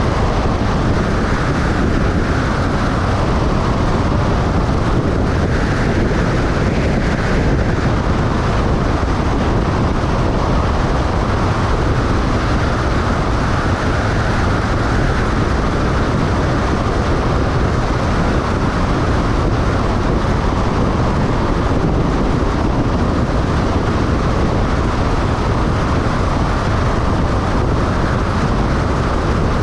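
Steady road and wind noise of a vehicle driving at highway speed, an even rushing sound that does not change.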